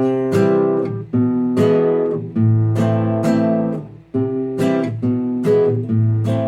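Acoustic guitar played slowly in the Ecuadorian sanjuan rhythm: a bass-string stroke followed by strummed chords, each stroke ringing out before the next, in the 1-2, 1-2-3 pattern.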